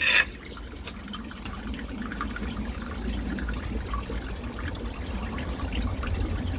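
Water trickling steadily along the half-round channel of a drain inspection chamber, the drain running freely now that the blockage has been cleared. A short splash sounds right at the start.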